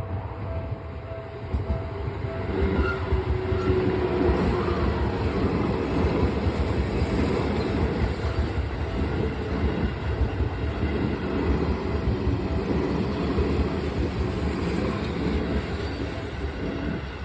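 Seibu electric commuter train passing over a level crossing for about fifteen seconds, louder from about two seconds in, while the crossing's warning bell keeps ringing in an even, repeating pattern.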